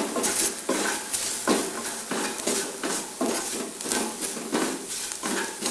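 A spatula stirring and scraping spice powders frying in coconut oil in a pan, with a steady sizzle under repeated strokes about once a second.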